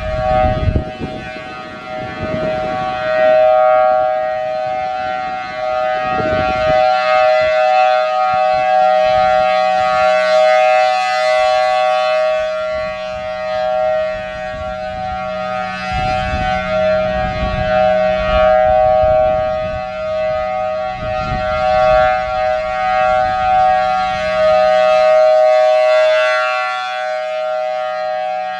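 Federal Signal Thunderbolt 1000T outdoor warning siren sounding its steady alert tone at a fixed pitch, swelling and fading in loudness every several seconds as the rotating horn sweeps past. Wind buffets the microphone underneath.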